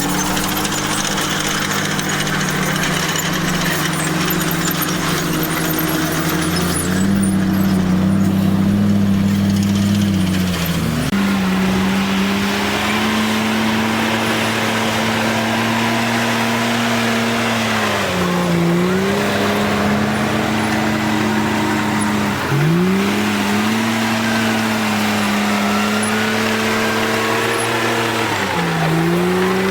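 Komatsu bulldozer's diesel engine running hard, its note sagging and recovering about four times, with faint high squeals over it.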